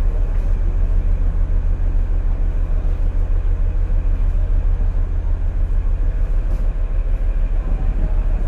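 Steady low rumble of a train in motion.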